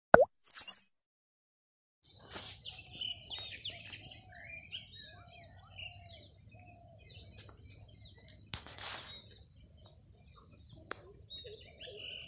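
A short swooshing sound effect, then about a second of silence, then outdoor nature ambience: a steady high-pitched insect drone with many bird calls chirping over it. A brief burst of noise cuts across it about two-thirds of the way through.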